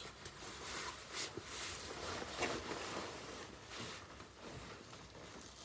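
Faint rustling of a parka's fabric being handled and moved, with a few brief scratchy swishes.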